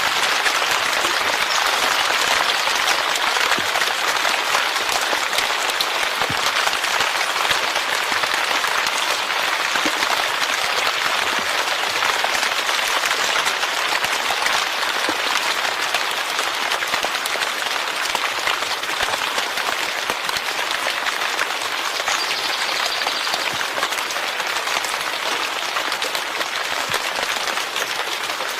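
Steady heavy rain, a dense, even hiss of falling drops that holds at one level throughout.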